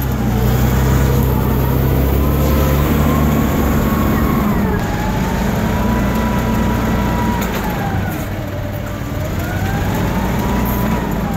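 Hyster S80XL2 LP-gas forklift engine running as the truck moves, a steady engine hum with a whine that slowly rises and falls in pitch.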